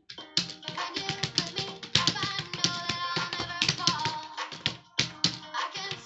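A recorded song playing in the background, with irregular, rapid clicks of computer keyboard keys being typed over it.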